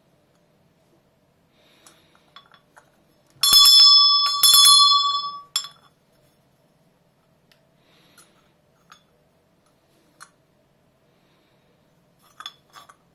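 Tarnished antique brass hand bell shaken so its clapper strikes several times in quick succession about three and a half seconds in, ringing with several steady high tones for about two seconds; the old, uncleaned bell still works. Light handling knocks before and after.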